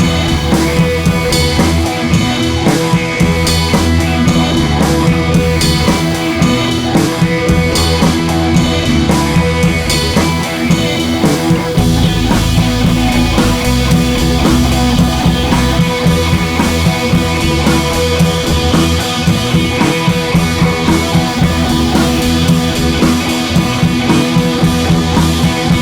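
Background rock music with drums, guitar and a steady beat.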